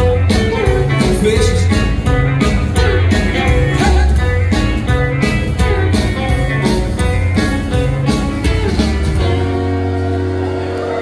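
Live rockabilly band playing with a steady beat: acoustic guitar, steel guitar, upright bass and drums. The beat stops about nine seconds in and the band holds a final ringing chord.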